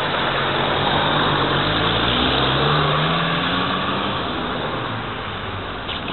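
Street traffic: a car's engine rises in pitch as it accelerates through the junction, then fades away over the last couple of seconds.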